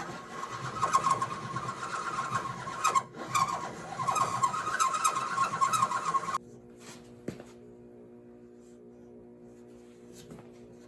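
Hand file rasping back and forth across a hardened repair patch, levelling it flush with the frame. The filing stops suddenly about six seconds in, leaving a faint steady hum.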